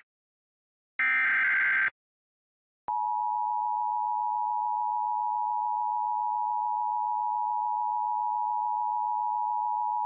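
Emergency Alert System tones: the last of the SAME header data bursts, about a second long, starts about a second in. About three seconds in, the EAS two-tone attention signal (853 and 960 Hz together) starts and holds steady, the sign that a spoken alert is about to follow.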